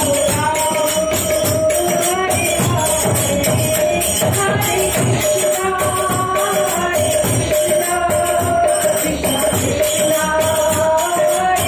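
Devotional kirtan music: a harmonium playing a held melody over a steady beat of hand percussion.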